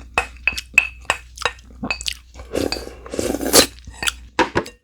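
Cutlery clinking and tapping against dishes in a quick, uneven run of light strikes, with a longer rustling scrape in the middle.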